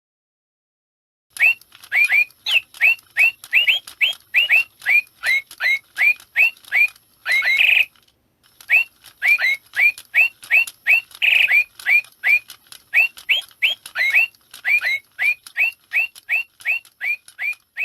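Ornamental toy bird chirping electronically: a long run of short, rising chirps, about two a second, starting a second or so in, with a short break near the middle. A faint steady high whine sounds under the chirps.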